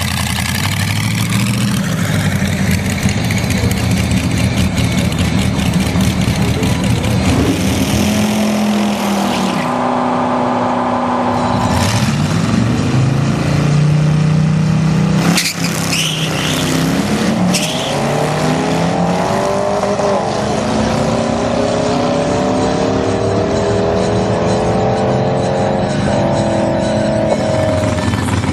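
Ford flathead V8 in a rat rod running loud and revving, its pitch climbing and falling. Then racing engines accelerate hard down the drag strip, the pitch rising in several sweeps.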